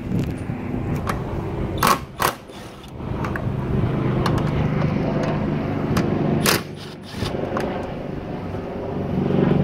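Cordless drill with a 10 mm socket on an extension backing out the screws that hold a tail light, its motor whining steadily in two runs, the second starting about eight seconds in. A couple of sharp metallic clicks come about two seconds in.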